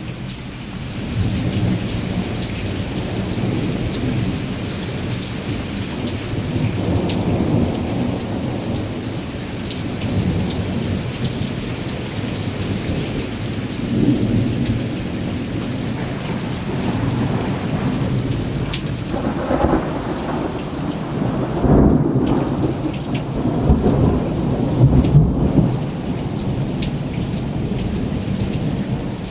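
Thunder rumbling almost without a break, rolls swelling one after another and loudest about three-quarters of the way through.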